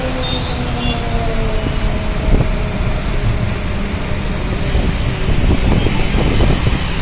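Road traffic noise with a vehicle engine note slowly falling in pitch, and wind buffeting the microphone more and more in the second half.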